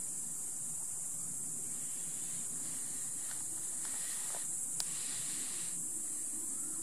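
A steady high-pitched hiss, with a soft wider rustling noise in the middle and a single sharp click near the end of it, about five seconds in. No deer call is heard.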